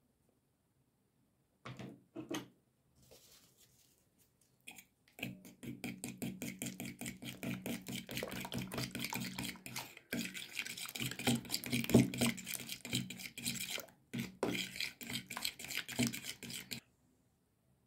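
A fork beating eggs in a ceramic bowl: rapid clinking strokes of metal against the bowl, several a second, with two short breaks, after a couple of knocks of the fork against the bowl near the start.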